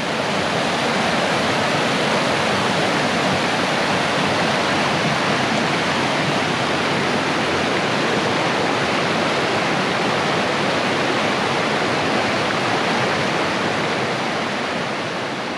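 Rain-swollen creek rushing: a loud, steady roar of raging water that eases a little near the end.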